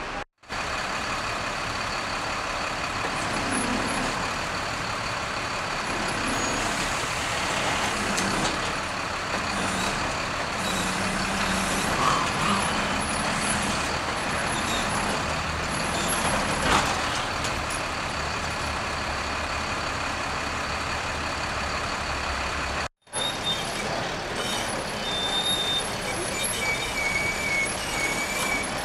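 Heavy truck engine running steadily, the flatbed recovery truck at work, with street noise around it. The sound drops out suddenly just after the start and again about three-quarters of the way through.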